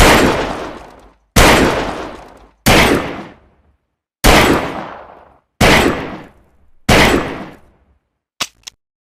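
Cheap 'Saturday night special' revolver fired six times, about one shot every second and a half, each shot ringing out briefly. A few light clicks follow near the end.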